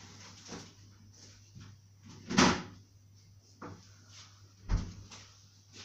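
Kitchen freezer being opened and shut while an ice cream tub is taken out: a few knocks and rattles, the loudest about two and a half seconds in, and a low thud near the end.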